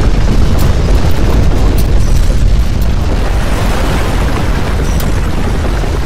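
Earthquake rumble: a loud, deep, continuous roar with scattered sharp crackles, easing a little toward the end.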